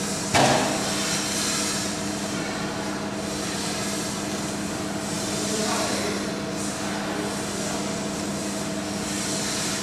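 Steady machine hum and hiss holding a few constant low tones, with a single sharp knock about half a second in.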